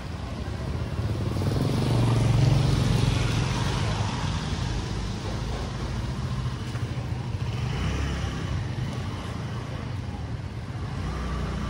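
Motor scooter engines passing close on a wet street, the loudest swelling up and fading about two to three seconds in, then steady street noise.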